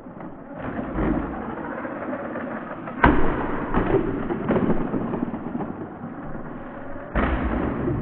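Toy-grade 1:20 RC monster truck running and tumbling, with a sharp crash about three seconds in and another hard knock near the end. The crash is the kind the owner thinks snapped the mount that the truck's shock attaches to.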